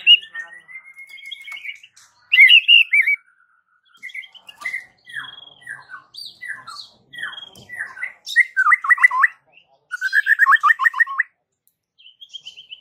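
White-rumped shama singing a varied song of clear whistles: a long rising whistle, a string of short falling notes, then two fast rattling trills in the second half.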